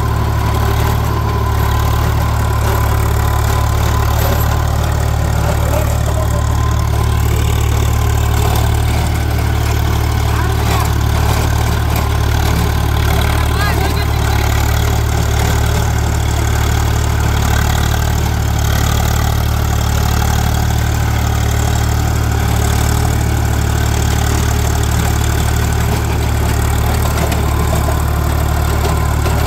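Swaraj 735 FE tractor's three-cylinder diesel engine running steadily under load, driving a rotavator through the soil.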